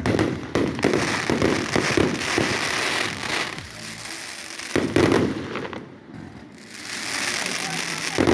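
Fireworks going off: a quick run of bangs with dense crackling, a louder bang about five seconds in, and crackling again near the end.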